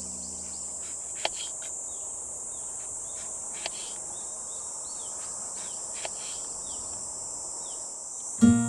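Steady high-pitched drone of insects, with repeated short downward-sweeping bird chirps and a few faint clicks.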